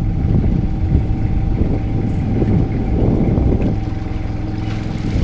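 Small fishing boat's engine running with a steady hum while a pot hauler winds in the line of a crab trap.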